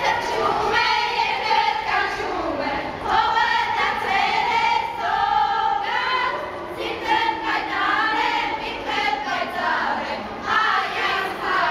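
A group of girls and young women singing together in unison, their voices echoing in a tiled underground passage.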